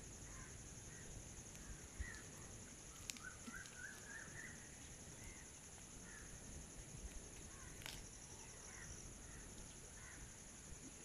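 Faint outdoor background: a steady high-pitched insect drone with scattered short bird chirps. Two sharp clicks stand out, about three seconds in and again near eight seconds.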